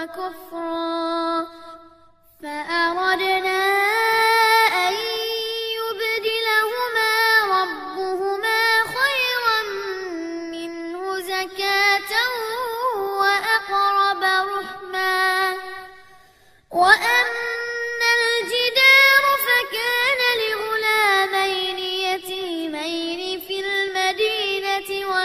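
A young boy's voice reciting Quran verses in melodic murattal chant, holding long notes with ornamented pitch turns. It breaks off briefly about two seconds in and again about sixteen seconds in, between verses.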